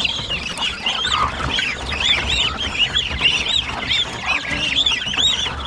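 Ducklings peeping, a rapid, overlapping chorus of short, high peeps.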